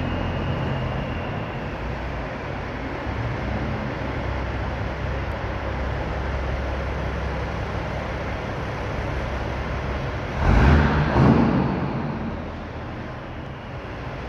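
Diesel engine of a big American-style semi truck running with a steady low rumble as it creeps forward. Two loud short blasts come about ten and eleven seconds in.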